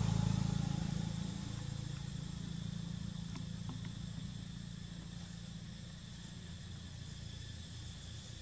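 A low motor hum fades away over the first second or so, over a steady high-pitched insect drone.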